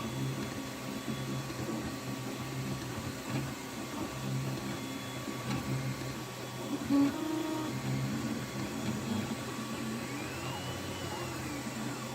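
Anet A8 3D printer's stepper motors whining as the print head and bed move, the tones stepping up and down in pitch, with a brief louder note about halfway through and rising-and-falling pitch sweeps near the end.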